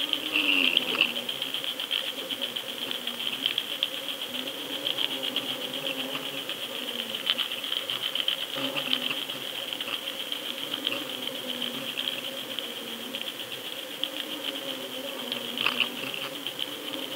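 Underwater sound picked up by a camera housing at depth: dense, rapid crackling and clicking over a steady high hiss, with a faint low hum underneath.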